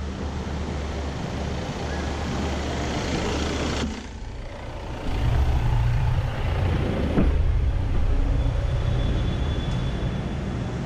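A new Volvo S60 sedan driving slowly across a factory floor and passing over the camera, heard as a steady low rumble of engine and tyres. The rumble dips briefly about four seconds in, then comes back louder as the car goes overhead, with one short knock midway.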